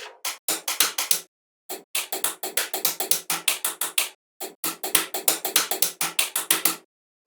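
Background music with a fast, clicky percussive beat, about five hits a second, in runs broken by short silent gaps.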